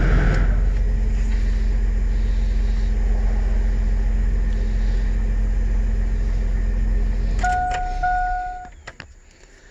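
Chevrolet S10 pickup's engine idling rough from inside the cab, missing on a cylinder whose spark plug wire has come off the plug. Near the end it is switched off: a dashboard chime beeps twice as the engine dies, followed by a few clicks.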